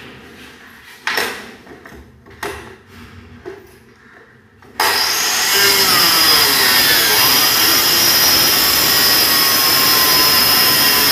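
A few scattered knocks, then about five seconds in a small handheld circular saw starts abruptly and runs at full speed through plywood with a steady high whine.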